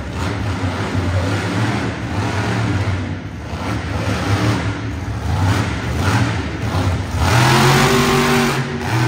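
Monster truck engine revving up and down repeatedly, with a longer, louder rev near the end.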